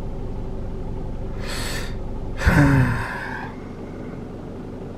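A man draws a breath and lets out a sigh whose pitch falls, about halfway through, over the steady drone of road and engine noise inside a moving car's cabin. The drone eases a little after the sigh.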